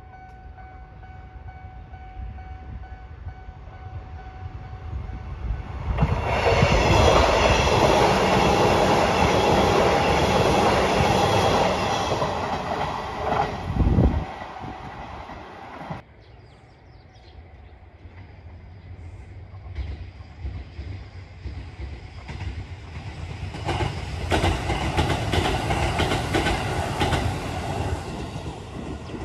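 Sanyo Electric Railway electric trains passing on the adjacent track. The sound builds over the first six seconds into a loud pass lasting several seconds. After a quieter stretch, a second train goes by near the end with wheels clattering over the rail joints.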